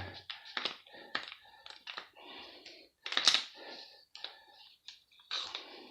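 Irregular light clicks and taps of hand tools and loose parts on the cement mixer's motor housing as it is being unbolted, with a couple of short scraping or rustling noises.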